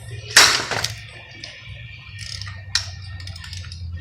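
A tight cam sprocket bolt on a Subaru 2.5 engine breaks loose with one sharp crack about half a second in, followed by a few lighter metallic clicks of the wrench.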